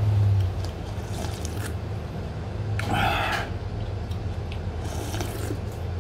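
Spicy ramen broth slurped straight from a tilted aluminum pot held to the mouth, in a few short noisy bursts, over a steady low hum.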